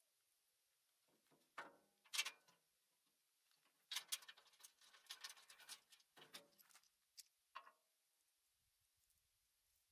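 Light metal clicks and rattles from a bolt and knob being fitted to a steel garden-shredder discharge chute, in scattered short bursts. The busiest stretch runs from about four to six and a half seconds in.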